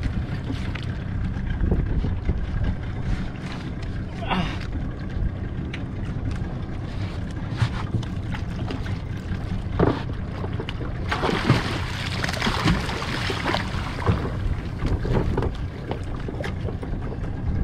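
Steady low rumble of wind and sea around a small outrigger fishing boat, with occasional knocks and a stretch of hissing noise about eleven seconds in.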